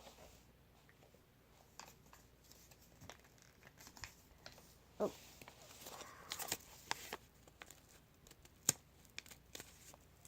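Faint crinkling and tearing of paper as a homemade paper squishy is handled and pulled apart, with scattered small clicks and one sharper click near the end.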